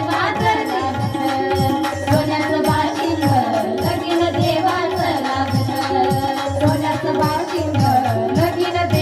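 Indian devotional folk music between sung lines: a sustained melody with rapid hand-drum strokes whose deep notes swoop downward, typical of tabla-style playing.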